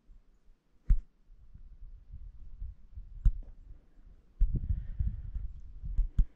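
Handling noise on a hand-held camera: low rumbling thumps with a few sharp clicks, about a second in, past three seconds in and twice near the end, as the camera is fiddled with to zoom.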